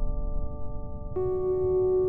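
Background music: a sustained, held chord that shifts to a new, higher-voiced chord a little over a second in.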